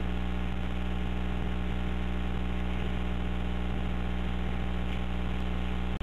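Steady low electrical hum on an open telephone line, heard through the phone's narrow band.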